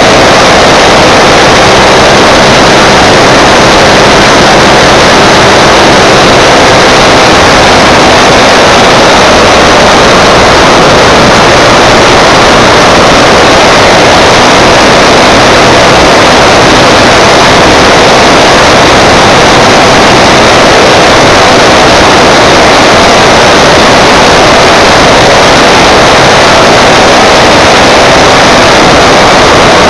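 Jawa motorcycle running at a steady cruising speed, its engine note mixed with loud, even wind and road rush on the camera's microphone.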